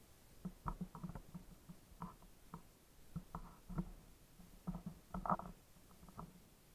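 Footsteps on a wooden plank boardwalk: faint, irregular knocks and thuds, a few a second, loudest about five seconds in.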